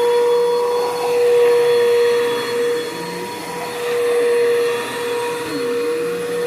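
Bissell PowerForce Bagless 6583 vacuum cleaner running with a steady motor whine over a rushing air noise. Its loudness swells and fades every couple of seconds.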